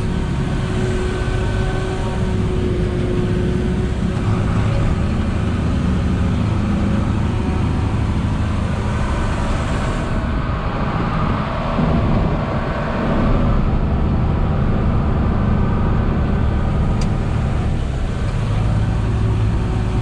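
Tractor engine under load pulling a forage harvester chopping standing corn for silage, a steady heavy drone heard from inside the cab. The hiss above the drone thins out about halfway through.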